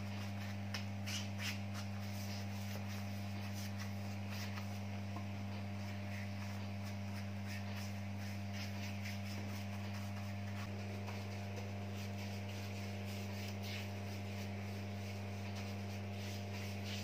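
Steady low electrical hum, with faint, irregular scratchy strokes of a bristle brush spreading linseed oil over a rough-sawn timber block.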